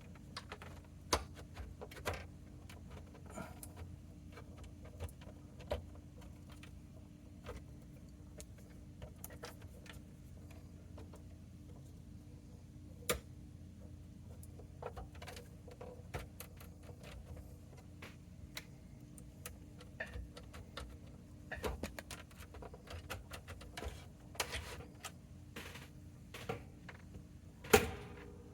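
Scattered small clicks, taps and clacks of metal oscilloscope chassis parts and connectors being handled during disassembly, over a steady low hum. A louder clack comes near the end.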